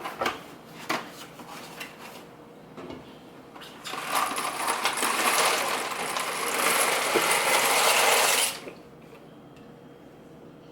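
Dry penne pasta pouring out of its box into a pot of boiling water: a dense rattling clatter, about four seconds long, that starts a few seconds in and cuts off suddenly, with a few light clicks before it.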